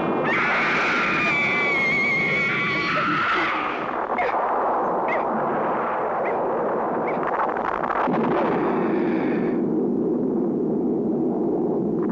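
Soundtrack of eerie sound effects: a loud, steady rushing roar with wavering high tones over the first few seconds and thin whines that die away near the end.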